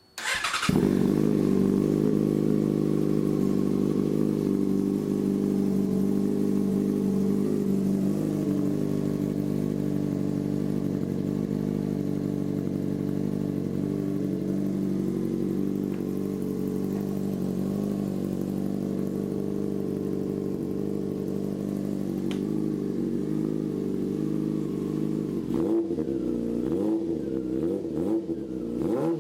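2006 Yamaha R6S inline-four engine breathing through an aftermarket Olson Performance shorty tail pipe: it fires up and idles steadily, then is revved in several quick blips near the end.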